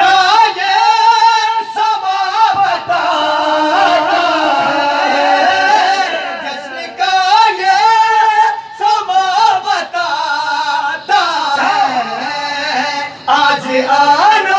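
A group of men singing an Urdu devotional recitation together, unaccompanied, with long held and wavering notes and short breaks between phrases.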